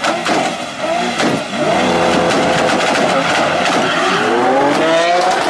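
A Lamborghini Aventador's V12 and a turbocharged VW Polo R32 4x4 launching side by side in a drag race, revving hard over tyre noise. The engine pitch climbs steeply in the last second or so as the cars accelerate away.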